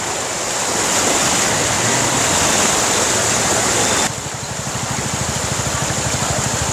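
Floodwater rushing across a road, with tyres splashing through it. About four seconds in it cuts abruptly to a quieter, steady flow of water with a quick, low pulsing underneath.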